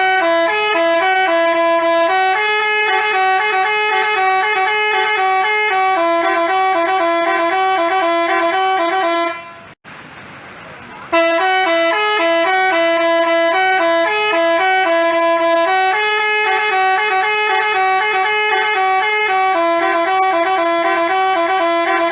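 Telolet basuri bus horn playing a multi-note tune in loud, stepped horn tones. The tune breaks off about ten seconds in and, after a short pause, starts over and plays again.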